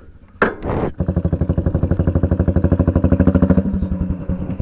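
Royal Enfield single-cylinder motorcycle engine running at low revs with a rapid, even thump, cutting in abruptly about a second in after a brief noise.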